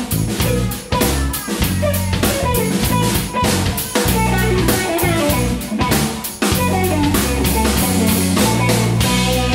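Live instrumental rock jam: a drum kit keeps a steady beat under electric guitar and bass guitar lines. The low end drops out briefly about a second in and again near six seconds.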